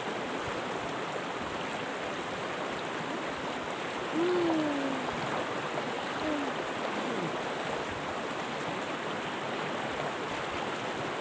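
River water rushing steadily, an even hiss. About four seconds in there is a short falling vocal sound, and a smaller one near six seconds.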